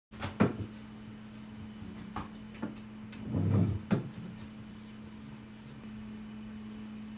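Household handling sounds: a few light wooden knocks and clicks, as of cupboard doors or drawers, with a short rub about three and a half seconds in, over a steady low hum.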